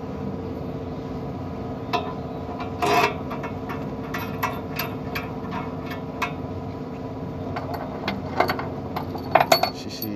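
Scattered metal clicks and knocks from hands and tools fitting a truck's clutch pressure plate against the flywheel, a cluster about three seconds in and another near the end, over a steady mechanical hum.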